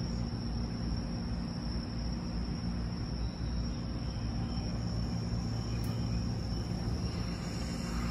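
Steady low hum of a 209-series electric train standing at the platform with its doors shut, with a thin, steady high tone above it.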